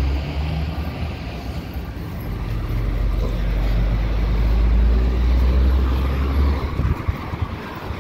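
A motor vehicle passing close by on a street: a low engine rumble that swells and then cuts off near the end.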